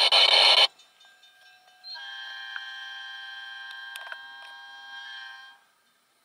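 Diesel locomotive air horn, an EMD GP10's, sounding one long, steady multi-note chord for about three and a half seconds, starting about two seconds in. At the very start, a brief loud burst of two-way radio chatter cuts off in the first second.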